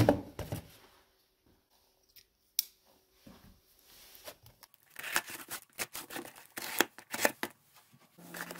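A mailed package being opened by hand: a knock at the start, a few scattered clicks, then a busy stretch of paper and cardboard rustling, tearing and crisp clicks over the last few seconds.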